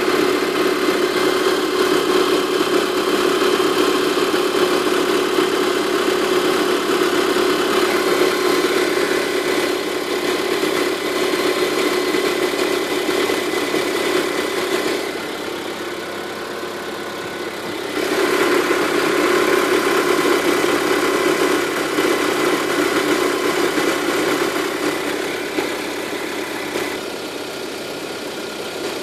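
Lada Granta's VAZ-21127 four-cylinder engine idling cold in freezing weather, with a steady high whistle over the engine noise. The whistle appears only on cold starts at sub-zero temperatures and fades as the engine warms. The sound dips for a few seconds about halfway through and again near the end.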